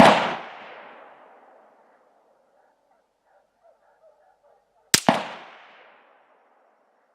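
AR-15 semi-automatic rifle with a 20-inch barrel firing 55-grain full metal jacket rounds: two single shots about five seconds apart. The first is at the very start, and each shot's echo rolls away over a second or so.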